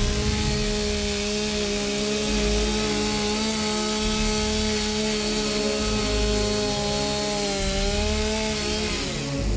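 Chainsaw running at a steady high speed as it cuts down through a wooden box. Its pitch dips slightly near the end, and it stops just before music takes over.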